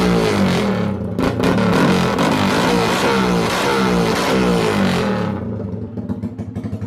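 Motorcycle engine running through an open elbow exhaust pipe with no muffler, loud, revved up and down several times, then dropping to a pulsing idle about five seconds in.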